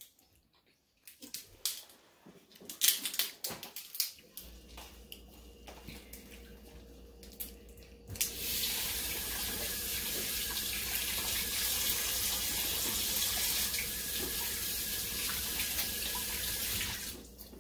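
Crab shells clicking and cracking as boiled crab legs are pulled apart by hand, then about eight seconds in a steady rush of running water starts and stops again near the end.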